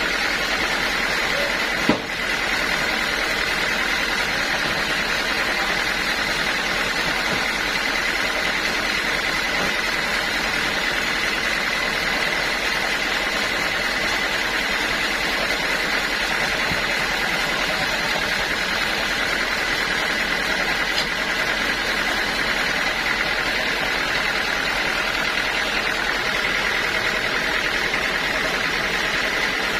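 Sawmill machinery running steadily, with a constant high whine, and a single sharp click about two seconds in.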